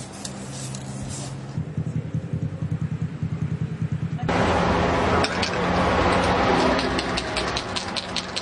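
A motor vehicle engine running with a rapid, even pulsing. About four seconds in, the sound jumps suddenly to louder, busier street noise with many short high-pitched clicks.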